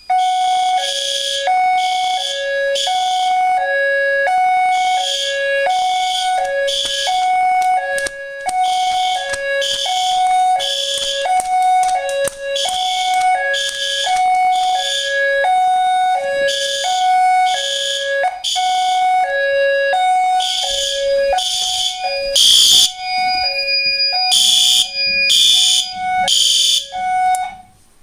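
Fire alarm system in alarm after a smoke detector has been set off with canned test smoke: the System Sensor horn strobes sound in repeating buzzy blasts over a two-tone signal that alternates high and low about once a second. The blasts are loudest near the end.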